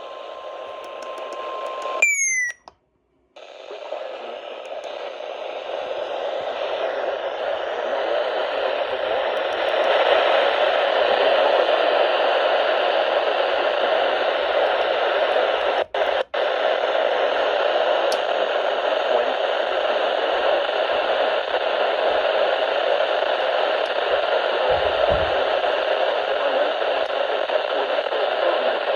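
Weather radio receiver hissing with static on a weak or empty signal. A steady tone ends about two seconds in with a short falling chirp and a click, then a second of silence. The hiss swells back and holds, with two brief dropouts about halfway through.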